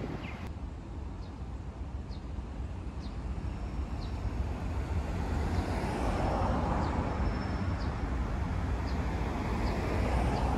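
Road traffic on a city street: cars passing with a steady low rumble, growing louder in the second half as vehicles pass close. Faint short high chirps come about once a second.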